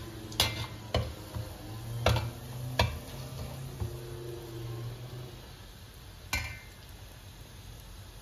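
Whole spices sizzling in hot oil while a metal spoon stirs them in a hammered copper pot, with sharp clinks of the spoon against the pot, four in the first three seconds and one more about six seconds in.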